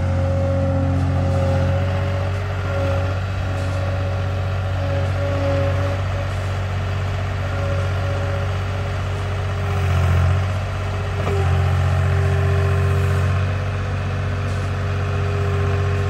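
Skid steer engine running steadily at throttle while the boom is worked with the foot pedals, with a steady higher whine over the engine hum. The engine note swells briefly about ten seconds in.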